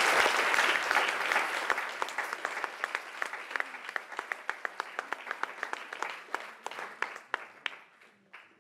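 Audience applauding. The clapping is loudest at the start, thins out into scattered single claps, and dies away shortly before the end.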